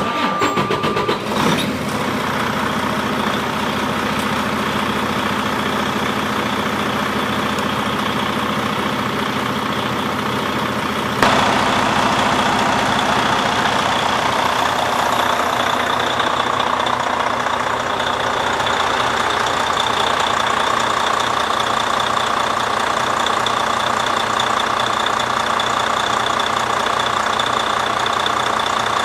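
Detroit DD15 inline-six diesel in a Freightliner Cascadia idling steadily after an engine swap, running smoothly, with a thin high whine over it. It gets louder about eleven seconds in.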